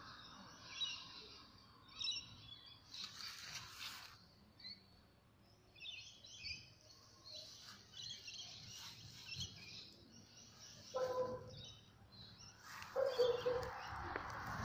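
Small birds chirping in short, scattered bursts, fairly faint, with two short lower calls near the end.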